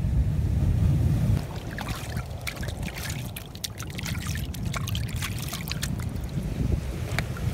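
Hands rinsing in a shallow rock pool of seawater: a quick run of small splashes and drips. Wind rumbles on the microphone during the first second or so.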